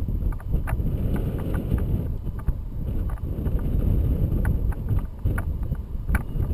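Wind buffeting an action camera's microphone in paraglider flight: a steady, fluttering low rumble, with irregular light clicks scattered through it.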